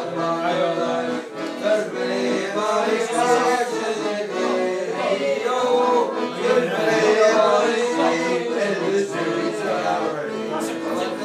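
A group of men singing a song together.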